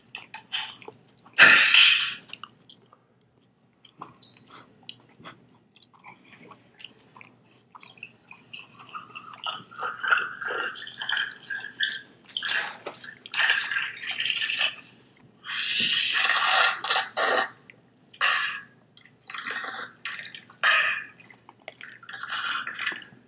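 Close-up mukbang eating sounds: pizza being chewed with wet mouth noises, coming in irregular bursts with short pauses between.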